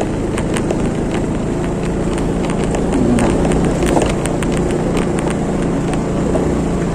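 Motorbike engine running at low speed over a rough, stony dirt track, with frequent clicks and rattles as it jolts over the ruts and stones.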